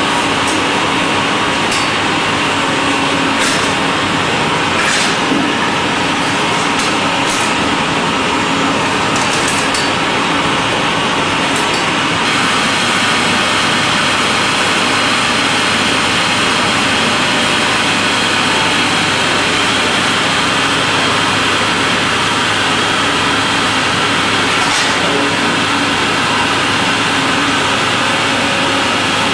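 Olive oil mill machinery running with a loud, steady hum and whir. Scattered short clicks and clinks come through during the first dozen seconds.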